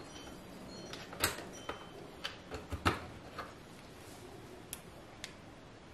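A run of sharp clicks and light knocks from handling hard objects: about seven over two and a half seconds starting a second in, then two fainter clicks near the end.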